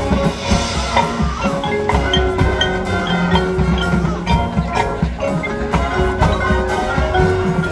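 High school marching band playing its field show, with mallet percussion from the front ensemble and frequent drum hits under held notes.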